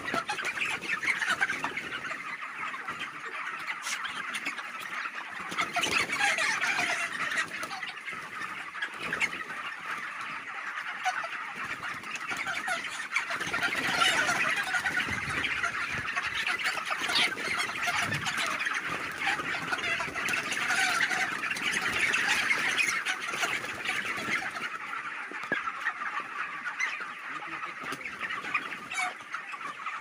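A large flock of white broiler chickens calling all at once: a continuous dense chatter of cheeps, clucks and squawks from many birds together, with no single call standing out.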